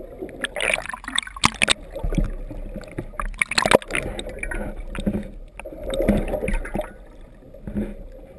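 Seawater sloshing and gurgling around a waterproof camera held just under the sea surface, with irregular splashes and a few sharp knocks against the housing.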